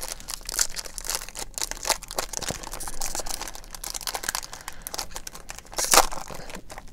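Sealed wrapper of a baseball card pack being torn open and crinkled by hand: a continuous run of crackling and tearing, with one louder crinkle about six seconds in.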